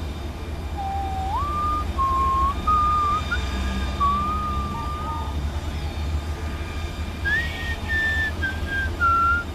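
Someone whistling a slow, wandering tune of held notes that step and slide between pitches, over a steady low rumble.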